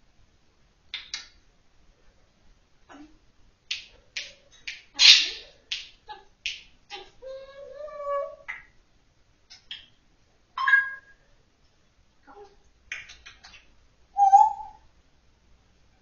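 African grey parrot making a string of sharp clicks and pops mixed with short whistled notes, including one wavering whistle of about a second and a half near the middle.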